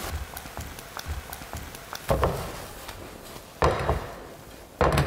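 Cooking utensil tapping and scraping against a wok as rice noodles are stir-fried, with light clicks throughout and three louder scrapes about two, three and a half, and five seconds in.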